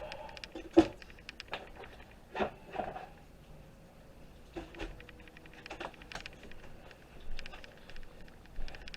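Scattered taps and clicks of a screwdriver and small parts being handled while taking apart a computer screen, with one sharper knock about a second in.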